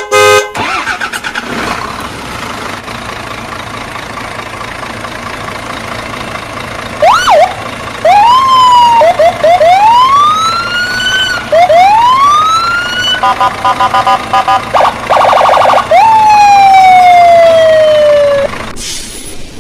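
Vehicle sound effects: a steady engine-like running noise, then loud siren-like electronic tones. These come as repeated rising sweeps, a fast warble, and one long falling tone near the end.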